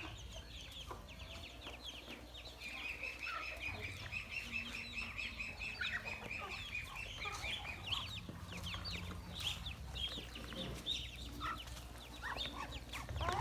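Ducklings peeping continuously, many short high calls overlapping.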